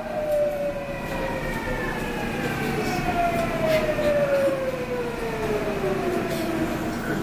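Seoul Subway Line 8 train's traction motors whining in several tones that slide steadily downward in pitch as the train brakes into a station, over the rumble of the wheels on the rails, heard inside the car.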